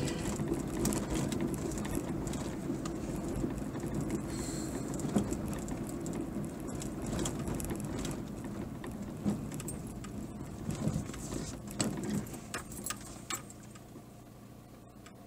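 Car driving slowly on a patched asphalt road, heard from inside the cabin: a low engine and tyre rumble with small clicks and rattles, getting quieter over the last few seconds.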